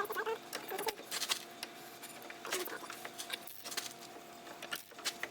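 Scattered metallic clicks and clinks of a ratchet and socket working on a sway bar link nut, with a faint steady hum underneath.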